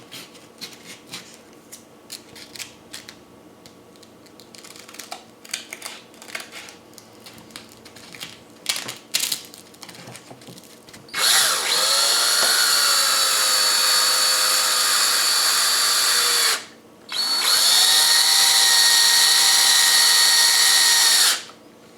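Light clicks and rustles of handling, then an electric drill running in two bursts of about five seconds each with a short stop between, its whine rising as it spins up.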